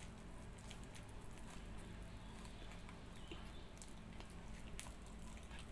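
Close-up mouth sounds of eating ripe palmyra palm fruit: faint wet sucks, smacks and small clicks as the soft, fibrous orange pulp is bitten and sucked off the fibres, over a low steady hum.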